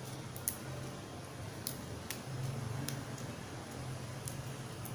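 About six small, sharp clicks spread out, from red holy basil leaves being snapped off their stems by hand, over a faint steady low hum.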